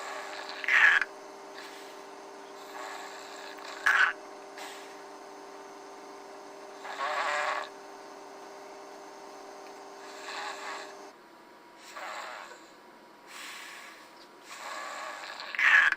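A person snoring, about seven snores a couple of seconds apart, some short and sharp and one longer. A steady hum runs underneath and cuts off about eleven seconds in.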